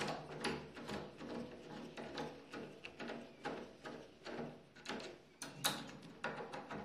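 Hand screwdriver tightening the mounting screws of a cylindrical doorknob lock: a run of small irregular metal clicks and scrapes as the screw is turned, with a sharper click about five and a half seconds in.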